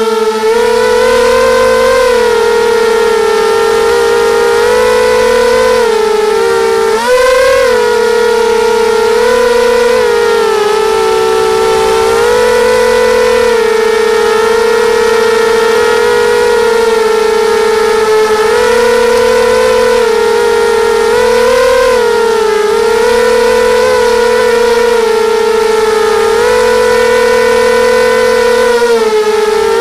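Brushless motors and propellers of a QAV250 FPV racing quadcopter, heard through its onboard camera: a loud, steady whine that swells briefly in pitch a few times, most sharply about seven seconds in.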